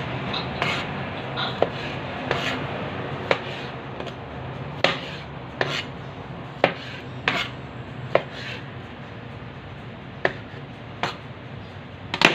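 Chef's knife slicing cherry tomatoes on a plastic cutting board: irregular sharp taps of the blade meeting the board, roughly one a second, over a low steady hum.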